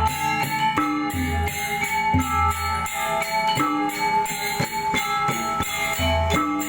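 Balinese gamelan ensemble playing: bronze metallophones ring out quick successions of notes over low drum strokes and bright jingling cymbal strokes.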